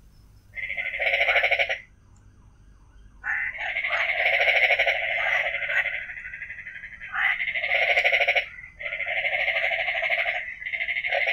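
A frog calling close by: a pulsed, buzzing call repeated in bouts of one to three seconds with short pauses between.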